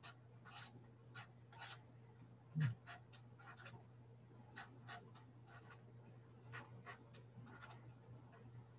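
Marker strokes scratching on a whiteboard as a chemical structure is drawn: short strokes in irregular bursts. A brief low thump about two and a half seconds in, over a faint steady hum.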